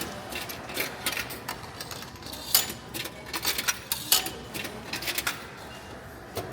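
Ticket vending machine being operated: a series of irregular sharp clicks and clacks from its buttons and mechanism, closest together around the middle.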